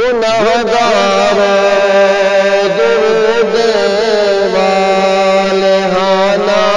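A man's solo voice singing a naat into a microphone in long, drawn-out melodic lines. The voice comes in sharply at the start and holds long notes, the pitch wavering and gliding between them.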